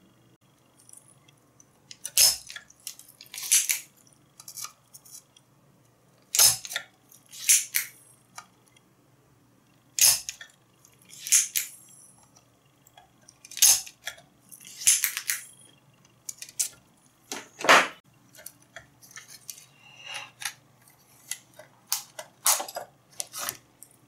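Small metal tools clicking and clinking against a circuit board while a transistor is desoldered and pulled out, about a dozen sharp clicks at uneven intervals.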